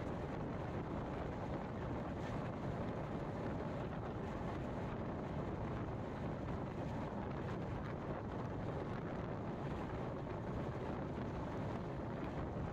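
Steady running rumble and wind rush of the 16352 Nagercoil–Mumbai CSMT express passenger train in motion, heard on board.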